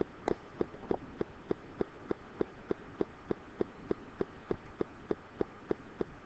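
Steady, even ticking, about three ticks a second.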